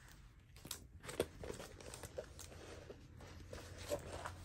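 Clear plastic cover film on a diamond painting canvas crinkling and rustling as the canvas is handled and smoothed flat by hand, with a few sharp crackles about a second in.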